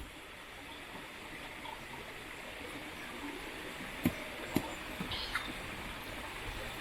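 River water flowing steadily, with two sharp knocks a little after four seconds in and a few lighter ticks soon after, from a knife being used to dig a hole in the soil.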